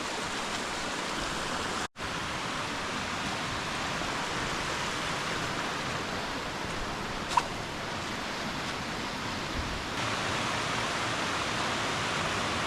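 Steady rush of running water from a stream or waterfall, a little louder from about ten seconds in. It drops out for an instant about two seconds in, and there is one short sharp tick about seven seconds in.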